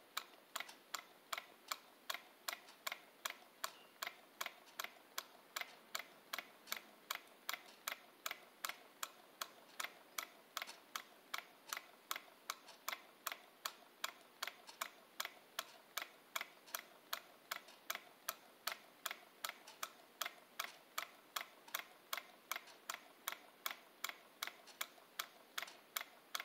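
Home-made solenoid engine running steadily, its solenoid firing in an even clicking about three times a second, like a clock ticking.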